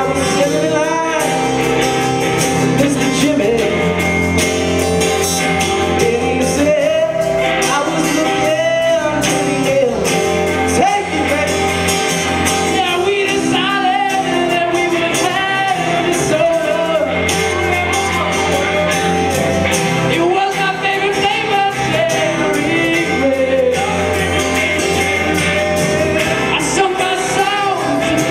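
Live band playing a rock song: electric and acoustic guitars with bass under a singer's melody.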